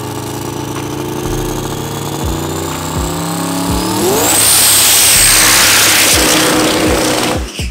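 A light dragster's twin-turbo V8 idling, then revving up about four seconds in into a loud burnout, the engine held at high revs with the rear tyres spinning and a high whine rising over it. The sound cuts off suddenly near the end.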